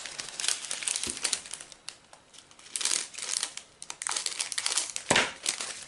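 Plastic packets of diamond-painting drills and zip-lock bags crinkling as they are handled, in irregular bursts, with a soft knock about a second in and another near the end.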